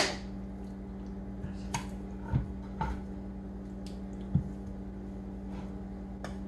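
Soft squishing and a few light knocks of raw turkey wings being handled and turned in a roasting pan, with a sharp knock at the very start. A steady low hum runs underneath.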